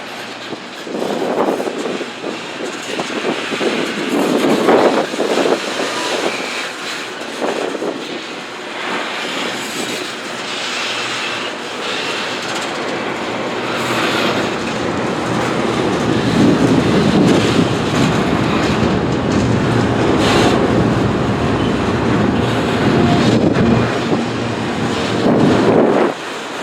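A train's cars rolling past, their wheels clattering over the rails in an uneven, then steadier, rumble.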